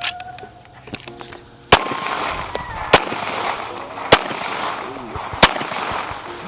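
Four 9mm Glock pistol shots, fired singly about one and a quarter seconds apart during a timed drill, each followed by a ringing echo. The first comes about a second and a half in.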